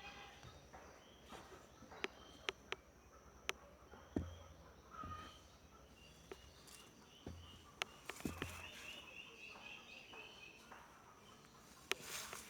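Quiet outdoor rural ambience: a steady high buzz of insects with bird chirps, scattered sharp clicks and a few soft low thumps.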